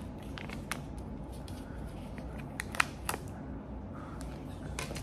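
A Kinder Joy egg's foil lid and plastic spoon and cup being handled: a handful of sharp plastic clicks and light crinkling, the loudest click near the middle, over a low steady room hum.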